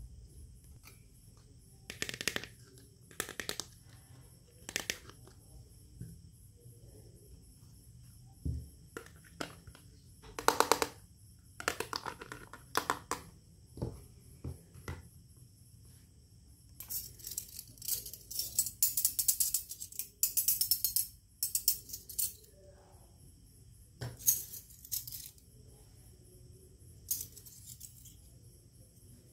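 Miniature plastic and stainless-steel toy kitchen pieces being handled and set down: scattered clicks and clinks, some with a short metallic ring, and a dense run of small rattling clinks in the middle.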